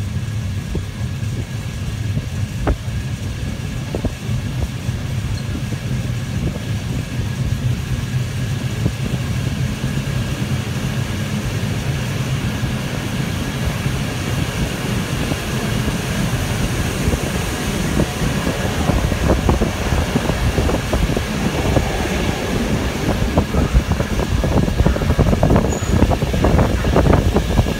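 Passenger train pulling out of a station, heard from a carriage window: a low running rumble that grows louder as it gathers speed. Wheel clicks over rail joints and points come more and more often near the end.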